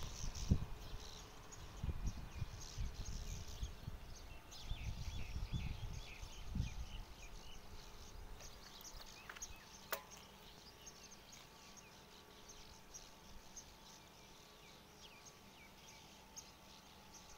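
Open-air ambience with many short high chirps throughout, like small birds or insects. In the first seven seconds there are low rumbles of wind buffeting the microphone, and there is a single sharp click about ten seconds in.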